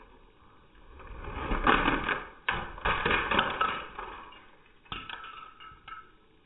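Custom LEGO car crashing on carpet and knocking apart a LEGO ramp: plastic bricks clattering and breaking loose in a loud rattling burst lasting a couple of seconds, then a few sharp clicks of loose pieces about five and six seconds in.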